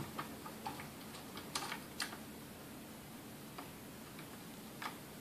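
Faint, scattered light clicks and ticks of a screwdriver working the screws in the metal motor housing of a vintage Sunbeam Mixmaster Model 12, with a short cluster of sharper clicks about one and a half to two seconds in.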